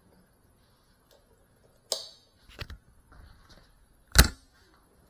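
A few sharp knocks and clatters, the loudest about four seconds in, as the small cinewhoop drone carrying the camera is handled and set down on the floor, its motors not yet running.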